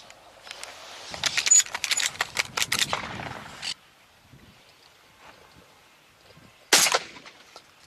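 Gunshots: a rapid run of many sharp cracks lasting about two and a half seconds, then one single loud shot near the end.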